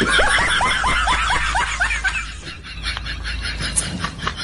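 Laughter: a quick run of short falling 'ha' sounds, about five a second, that dies away after about two seconds.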